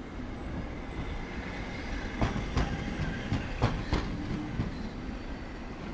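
A Hankai Tramway streetcar, car 607, rumbling past close by. Its wheels clack over the rails five times in quick succession around the middle.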